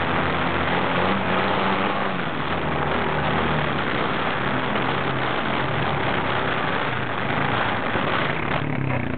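Quad bike (ATV) engine running under load as it climbs a wet, muddy track, its pitch rising and falling with the throttle, over a steady rushing noise.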